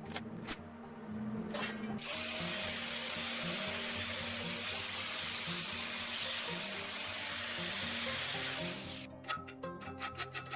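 A steady hissing rush, like spray or running water, starts abruptly about two seconds in and cuts off near the end, over background music. Quick rhythmic strokes follow it.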